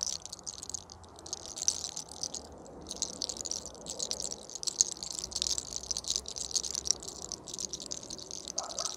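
Hair cracking: a very thin lock of human hair twisted between the fingertips and pulled taut, giving a dense, irregular crackle of fine clicks.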